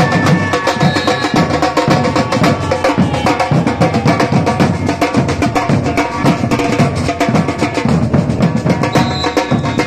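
A samba drum troupe playing together on large bass drums and smaller high drums, beaten with sticks and mallets in a fast, dense, driving rhythm.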